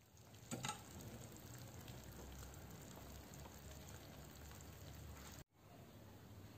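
Hot béchamel and melted cheese sizzling faintly in a glass baking dish fresh from the oven, with a short knock about half a second in.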